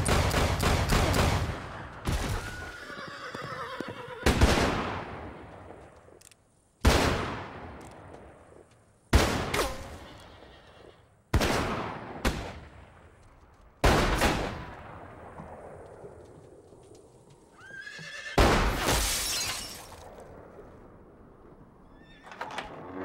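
Western-film gunfight: a rapid string of revolver shots at the start, then about seven single gunshots spaced two to three seconds apart, each echoing away in a long tail. A horse whinnies about three seconds in and again around seventeen seconds.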